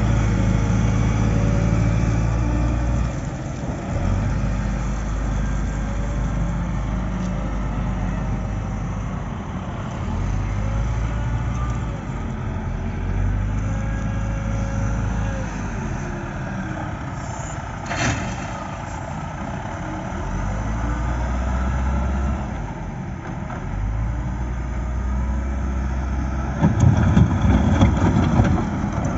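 Caterpillar 950B wheel loader's diesel engine working under changing load, rising and falling as the machine digs, lifts and dumps its bucket of gravel. A single sharp knock about two-thirds through, and a louder rough stretch near the end as the bucket pushes into the gravel pile.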